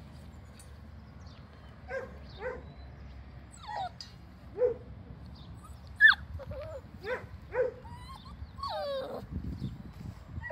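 Dalmatian puppies, about a month old, yelping and whining: about ten short high cries from about two seconds in, the sharpest near the middle, and a longer wavering whine near the end.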